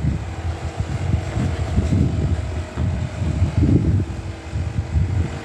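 Wind buffeting the microphone, an uneven gusting rumble, with a faint steady hum underneath.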